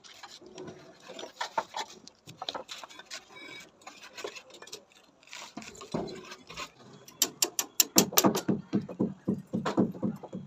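Hand-tool building work: scattered taps and scrapes, then about seven seconds in a quick, regular run of sharp knocks, about four a second.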